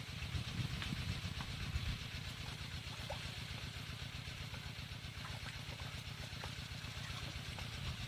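An engine running steadily at idle, its low, even pulsing a little louder in the first couple of seconds.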